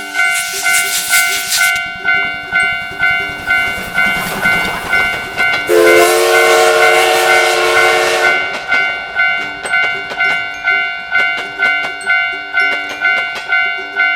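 Japanese railroad crossing alarm clanging steadily about twice a second as a steam locomotive passes. A hiss of steam comes in the first couple of seconds, and the locomotive's whistle blows for about two and a half seconds in the middle.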